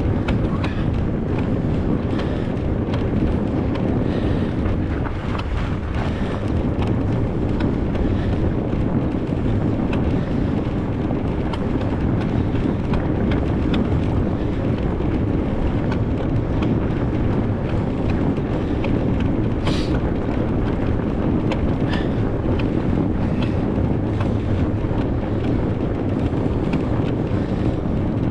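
Wind buffeting the microphone over the steady low rumble of a fat bike rolling through snow, with scattered small clicks and knocks and one sharper click about twenty seconds in.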